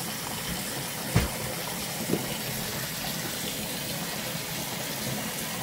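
Water running steadily from a tap during a puppy's bath, with a sharp knock about a second in and a softer brief sound a second later.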